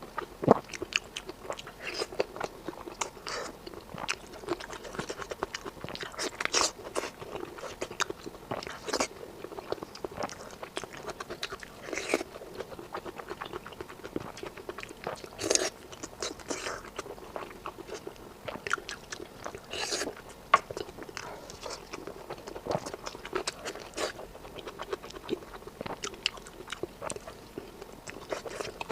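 Close-miked eating sounds: a person biting and chewing food, with many irregular sharp, crisp clicks from the mouth and a few louder bites.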